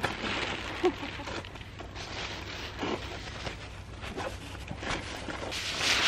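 Clear plastic packaging crinkling and rustling as it is pulled off a new folding camping chair in its fabric carry bag, in uneven bursts.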